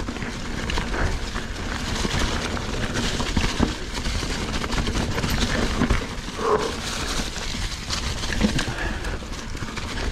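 Mountain bike riding down a dirt trail covered in slick fallen leaves: Maxxis Recon tyres rolling through the leaves, with a steady run of small clicks and knocks from the bike over bumps and a low rumble underneath.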